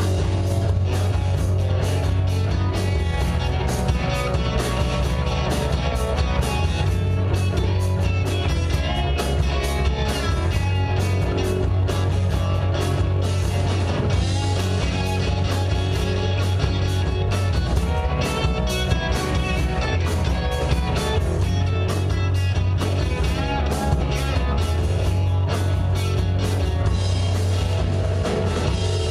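Live rock band playing a song: electric guitar over bass guitar and a drum kit, with a steady beat of drum and cymbal hits.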